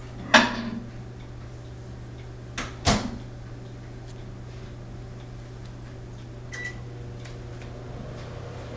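Microwave oven running on high with a steady low hum while brownie batter cooks, with two sharp knocks, one just after the start and one about three seconds in, and a few faint clicks.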